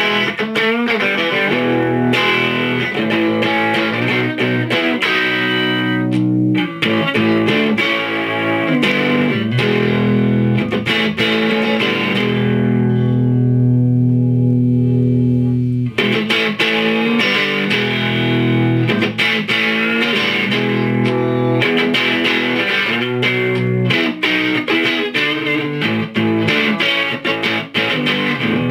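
Electric guitar played through a Supermosfet distortion pedal, giving distorted chords and riffs. About halfway through, one chord is held for a few seconds and its top end fades before the playing picks up again.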